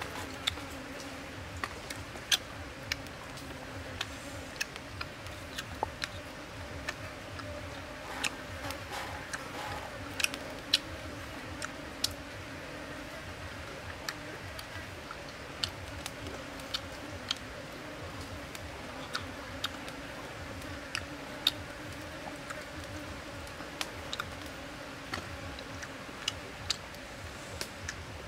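Close-up chewing and lip-smacking of chicken eaten by hand: sharp, irregular mouth clicks, several in most seconds. Under them runs a steady low hum.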